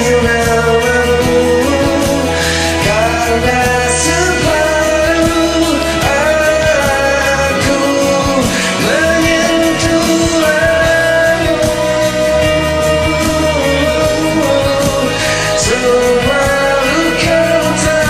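A male voice singing over a pop-rock karaoke backing track with guitar.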